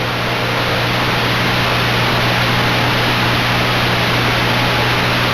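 Steady hiss of static with a constant low hum underneath: an open audio line carrying no program.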